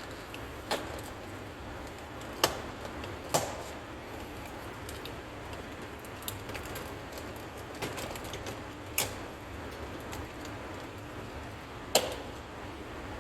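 Scattered sharp clicks and knocks, about six in all at irregular gaps, from hand tools and plastic trim pieces being worked on a car door panel, over a steady low hum.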